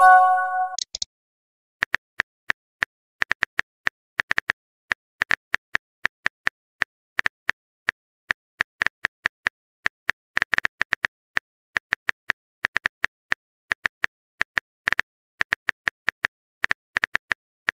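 Phone keyboard typing sound effect: quick, irregular key clicks, several a second with short pauses. About the first second holds the end of a short rising pop and chime of a message bubble appearing.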